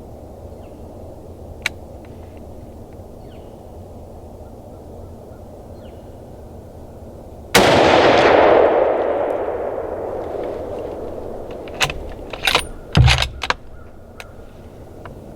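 A single rifle shot about seven and a half seconds in, its report rolling away in a long echo that fades over several seconds. A few sharp clicks and knocks follow near the end.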